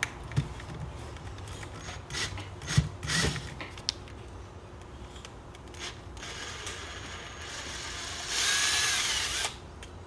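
Cordless drill boring a 3/8-inch hole through a plastic bottle cap. First come a few scattered clicks and knocks of handling, then the drill runs, loudest for about a second near the end with a wavering whine as the bit cuts, and stops suddenly.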